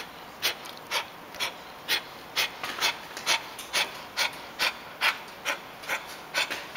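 A dog with canine distemper making regular mouth clicks, about two a second, as its jaw and lips twitch in rhythmic spasms: the involuntary jerking (myoclonus) of distemper's neurological phase.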